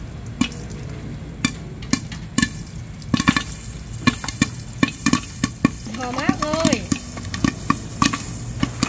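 Popcorn kernels popping in hot butter in a glass-lidded pan: sharp pops over a frying sizzle, sparse at first and coming much faster after about three seconds. A brief voice sounds about six seconds in.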